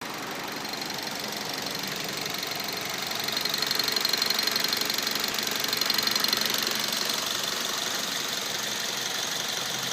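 Mazda 3 2.0 four-cylinder petrol engine idling with a steady, rapid ticking (цокот). The owner cannot explain the ticking: it stays with the intake manifold connector unplugged, with no oil consumption or noticeable loss of power.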